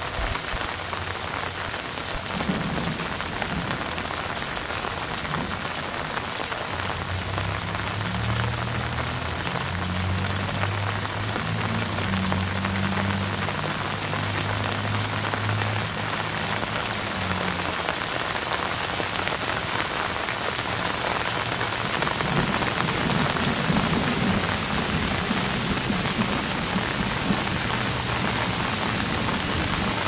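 Steady rain falling on the leaves of an apple tree, a dense, even patter. Distant thunder rumbles low from about seven seconds in until about eighteen seconds, and again more faintly later on.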